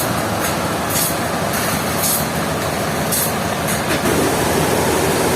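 Industrial sawmill machinery running: a continuous mechanical din with short hissing bursts in the first half, settling about four seconds in into a steadier hum with a held tone.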